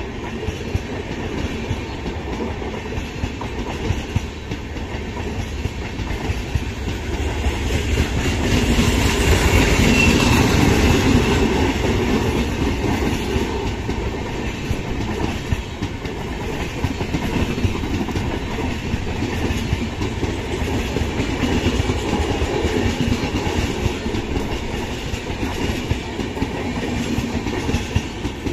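Passenger train hauled by a WAP-7 electric locomotive running along the track, its wheels clattering over the rail joints, growing loudest about ten seconds in and then carrying on steadily.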